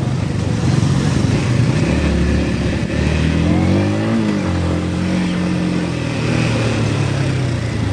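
Motorcycle engine running under way, its revs rising about three seconds in and easing back down again.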